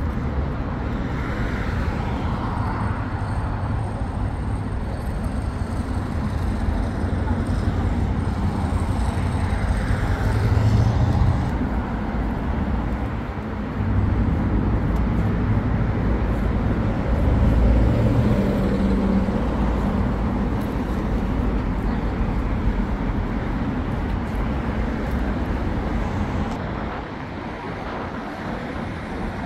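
City street ambience: steady traffic noise with the voices of passers-by.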